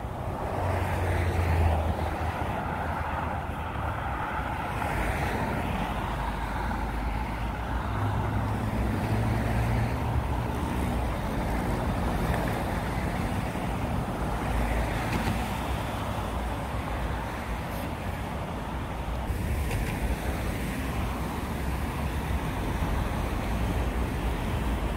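City road traffic: cars passing in a continuous mix of engine hum and tyre noise, growing louder briefly about a second in and again around eight seconds in.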